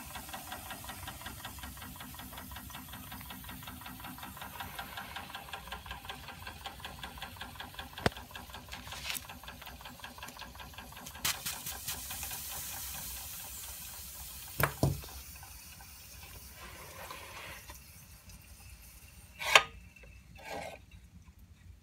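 Antique Schoenner toy steam engine with a vertical brass boiler running: a fast, even chuffing with steam hiss that dies away after about sixteen seconds. Several sharp knocks break in, the loudest near the end.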